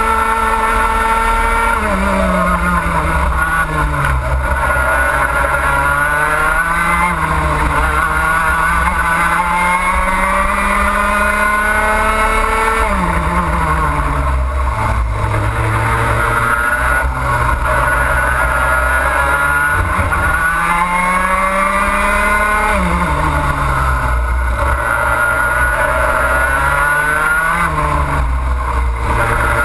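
A two-stroke racing kart engine at racing speed, heard from on board the kart. Its pitch drops quickly each time the driver lifts for a corner, several times, then climbs steadily back as the throttle opens down the straights.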